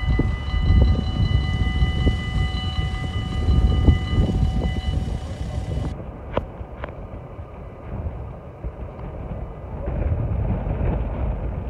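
Level-crossing warning bells ringing in a steady tone while the barriers lower, stopping about five to six seconds in once the barriers are down. Two sharp knocks follow soon after, over a loud low rumbling noise that runs throughout.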